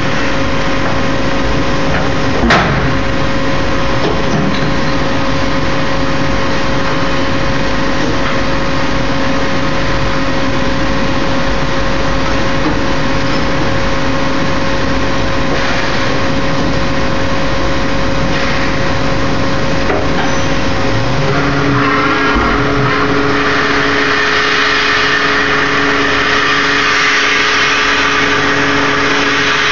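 CNC milling machine running with a steady mechanical whine and hum; about two-thirds of the way through, the whine shifts to a new pitch and a higher hiss comes in. A single sharp click sounds a couple of seconds in.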